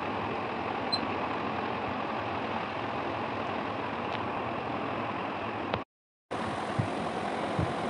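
Steady background noise, a constant hum and hiss with no clear source, that cuts out for about half a second near six seconds in and then resumes with a few soft low thuds.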